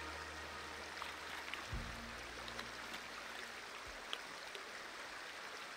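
The last notes of a background music track fading out, with a low held note from about two seconds in that stops near four seconds, over the steady flow of a shallow stream. A few faint splashes come from a hooked trout thrashing at the surface as it is netted.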